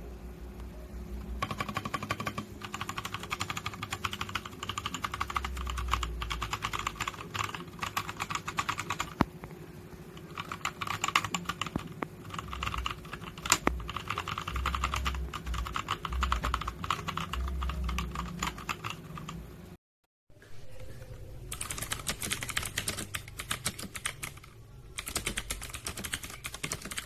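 Typing on a mechanical keyboard fitted with DANGKEY switches: fast runs of keystrokes clicking and clacking, in several stretches with short pauses. About twenty seconds in, the sound cuts out briefly and then the typing resumes.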